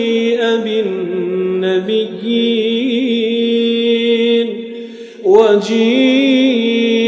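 A man reciting the Quran in melodic tajwid style, holding a long ornamented note with wavering pitch on "wa jee'a". The voice fades and breaks off just before five seconds in, then starts the next phrase.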